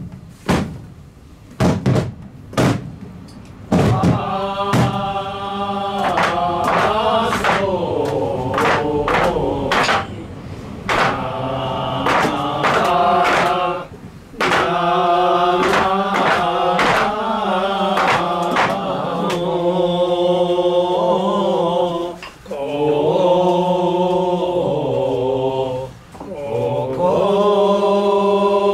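Voices chanting a song in long held notes that step from pitch to pitch, with short breaks between phrases. A run of sharp knocks comes before the chant starts, about four seconds in.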